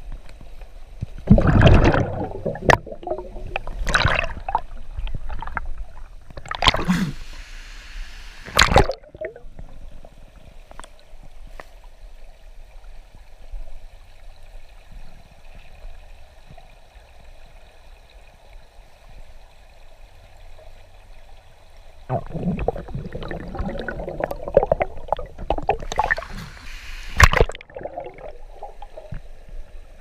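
Water sloshing and gurgling, heard muffled through a submerged camera, with sharp knocks among the noise. It is loudest in the first nine seconds and again near the end, and quieter in between.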